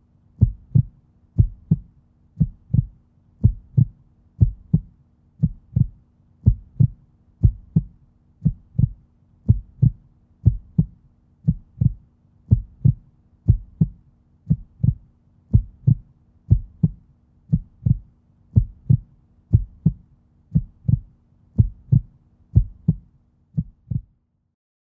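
Human heartbeat: steady paired lub-dub thumps, about one beat a second, that stop shortly before the end.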